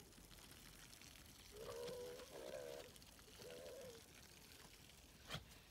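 A dog whining three times in short, wavering calls while play-fighting, with a sharp click near the end.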